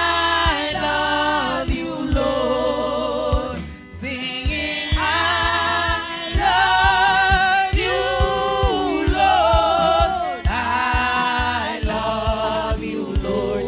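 A woman sings a gospel worship song into a microphone, holding long notes, over instrumental accompaniment with a steady beat.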